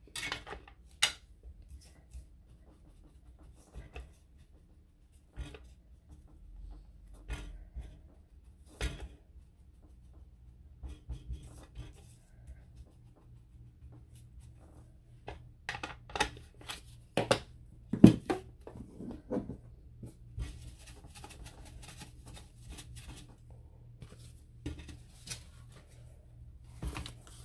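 Paper and craft tools being handled at a table: scattered taps, clicks and paper rustles, the sharpest a single click about two-thirds of the way through. A faint low hum comes in about a third of the way through.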